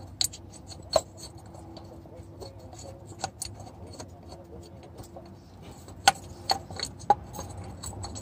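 Light metallic clicks and clinks at irregular intervals, from hand tools and small metal parts being handled during cooling-system work on a car. The sharpest comes about a second in, with a quick cluster of them near the end.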